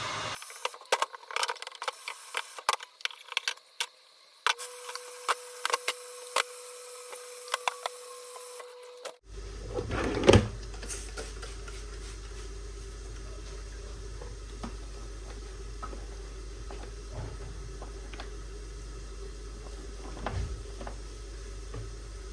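Kitchen clatter of crockery and utensils being handled while clearing up, a run of sharp clicks and knocks. Then, after an abrupt change about nine seconds in, a steady low hum with one loud knock.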